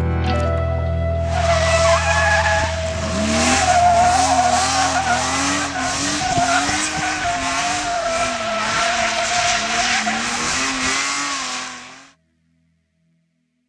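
BMW rally car's tyres squealing through a long, sustained drift, the squeal wavering in pitch, with the engine note rising and falling beneath it. Background music fades under it at the start, and the sound fades out abruptly about twelve seconds in.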